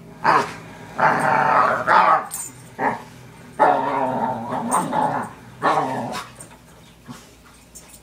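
Large dog 'talking': a run of drawn-out, pitched growling moans and grumbles, the longest about a second and a half, tailing off in the last two seconds. It is the dog's excited greeting noise when a family member comes home.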